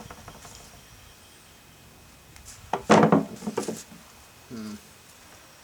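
Rustling and a quick run of knocks from potting soil and potatoes being handled while digging by hand in a planter, loudest about three seconds in. A short low hum-like sound follows near the end.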